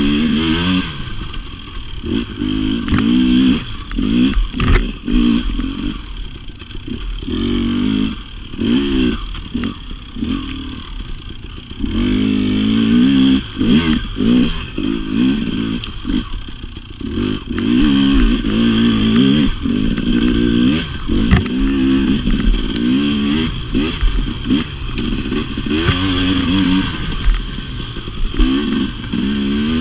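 2017 KTM 250 XC-W two-stroke dirt bike engine working hard off-road. It revs up and drops back every second or so as the throttle is opened and chopped, with some clattering over the rough ground.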